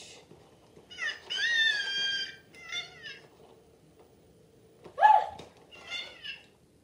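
Electronic toy owl giving a series of high chirps and warbling calls, with the loudest a short falling squawk about five seconds in.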